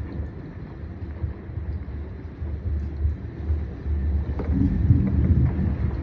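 Low rumble of thunder rolling in and growing steadily louder, mixed with wind buffeting the microphone.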